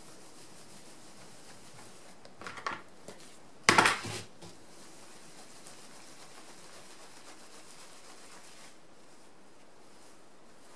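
Hands handling and squeezing a wet, soapy wool felt cone during wet felting: quiet rubbing, with a short rustle about two and a half seconds in and a louder rustle about four seconds in.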